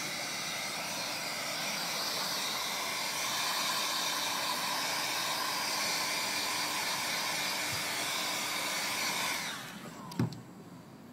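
Electric heat gun running steadily, a fan whir with rushing air, switched off about nine and a half seconds in, followed by a single knock.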